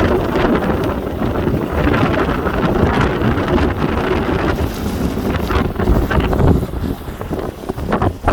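Strong wind buffeting the microphone in loud, uneven gusts with a heavy low rumble.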